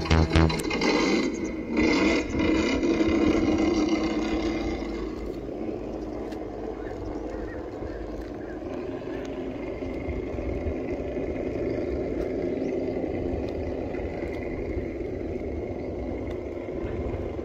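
Traxxas TRX-4 RC rock crawler's electric motor and geared drivetrain whining steadily as it crawls over rock, loudest for the first few seconds and then settling lower.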